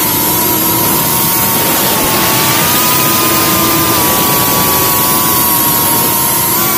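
IH3 Pro FPV quadcopter's brushless motors and propellers whining over rushing air, picked up by the onboard camera's microphone. The pitch holds fairly steady and lifts slightly near the end as the throttle changes.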